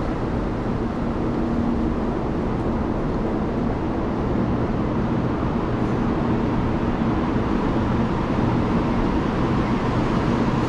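Taiwan High Speed Rail train running: a steady, even rushing noise with a low hum.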